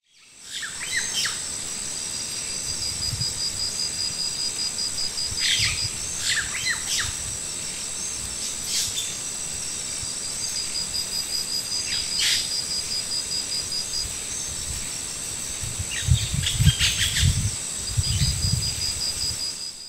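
Insects trilling with a steady high-pitched buzz and a fast pulsing chirp under it, while a bird gives short falling calls now and then. Low thuds and rumbles come in near the end.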